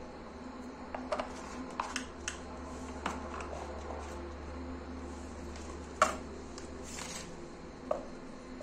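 Hollow red plastic chick feeder parts being handled and fitted together onto plastic pipe stands: scattered plastic clicks and knocks, the loudest about six seconds in.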